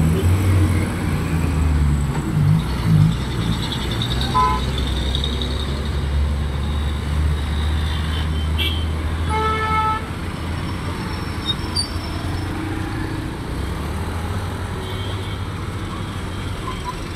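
Busy road traffic at a junction: a heavy vehicle's low engine drone under the passing motorbikes and cars, easing off about ten seconds in. Two short horn beeps sound, one about four seconds in and a longer one about nine seconds in.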